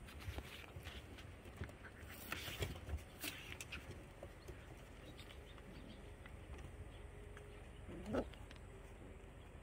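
Puppies play-fighting on a wooden deck: light scratching, patter and small clicks of paws and claws on the boards, busiest in the first four seconds, and one short puppy yelp about eight seconds in.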